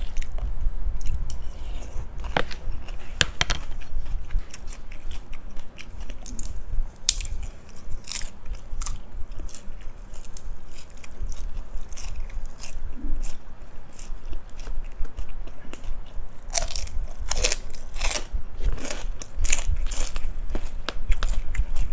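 Close-miked chewing with many sharp, crisp crunches, from crispy pork rinds eaten with spicy cucumber salad. The crunches come thicker and louder about three quarters of the way through.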